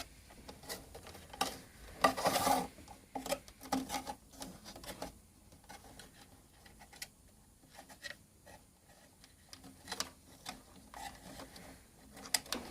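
The winch's cables being pushed by hand through a hole: irregular rubbing and scraping with light clicks, busiest about two seconds in.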